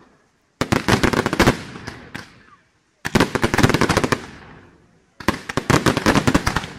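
Aerial fireworks display: three volleys of rapid, rattling bangs about two and a half seconds apart, each a dense string of sharp reports that trails off.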